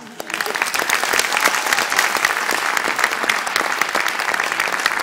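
Audience applause, breaking out suddenly and building to a steady level of dense clapping within about a second.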